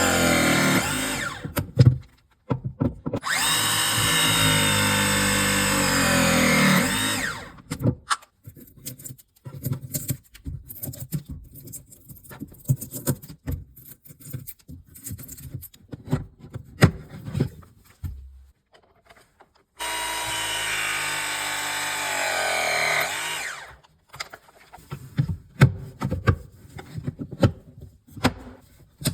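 Battery power tool motor running in three bursts of a few seconds, its pitch dropping as each run ends. Between the runs come scattered clicks and taps of handling pipe and fittings.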